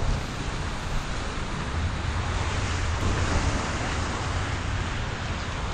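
Wind buffeting the microphone in a steady low rumble over the hiss of surf washing in, which swells a little about halfway through.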